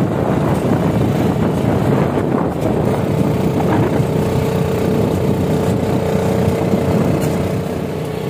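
Engine of an open-sided passenger cart running steadily while under way, with road and wind rumble. The engine note settles into a steady hum about three seconds in.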